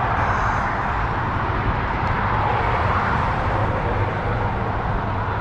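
Steady rushing outdoor noise with a low hum underneath, holding level throughout.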